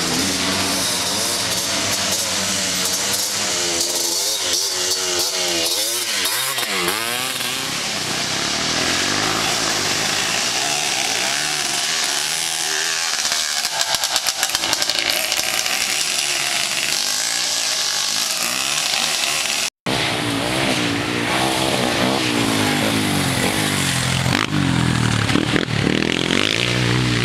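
Engines of 250 cc race quads revving hard, their pitch climbing and falling again and again as the riders accelerate and back off along the track. The sound drops out abruptly for a moment about twenty seconds in.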